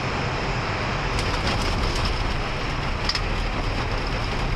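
Airbus A320 on its landing roll, heard in the cockpit: steady rumble of the wheels on the runway with a few sharp knocks.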